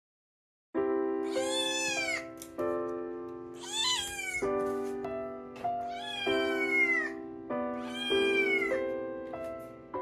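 A cat meowing four times, about every two seconds, each meow rising then falling in pitch, over background music of sustained chords that starts about a second in.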